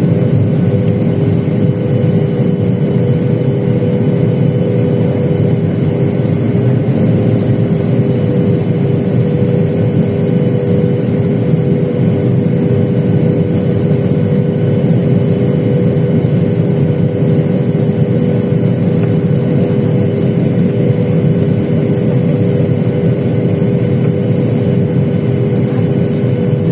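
Steady roar of a Boeing 737-800's jet engines and airflow heard inside the passenger cabin, with two steady hum tones over it.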